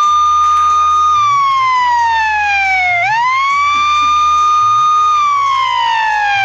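A loud siren wail: the pitch rises, holds, slides slowly down, then rises, holds and falls again, starting and stopping abruptly, over faint background music with a steady beat.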